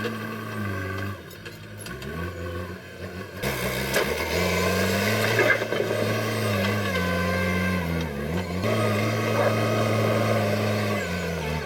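JCB backhoe loader's diesel engine running, its speed rising and falling several times as the operator works the hydraulics, with a brief dip about a second in and a sharp jump in loudness a few seconds in.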